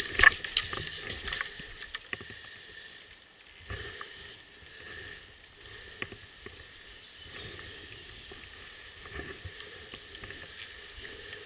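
Footsteps on leaf litter and rustling of clothing and gear as a person moves on foot, with a few sharper clicks in the first second.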